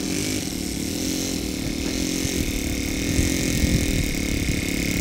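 Four-stroke gas engine of a large-scale RC Curtiss Jenny biplane running at low throttle as the model taxis on grass, its pitch wavering slightly.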